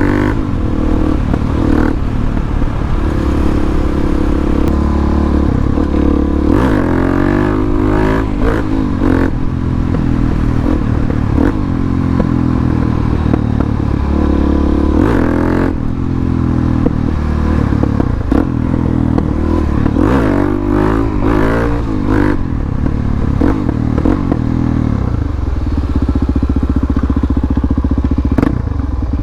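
Harley-Davidson Dyna motorcycle's V-twin engine running while riding, its pitch rising several times as it accelerates.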